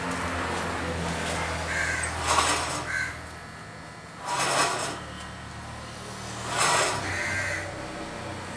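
A crow cawing three times, about two seconds apart, with harsh short calls over a low steady hum.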